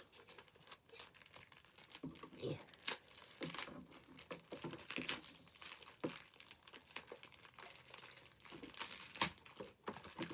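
Plastic toy packaging being crinkled and pried open by hand, with irregular crackles and sharp snaps.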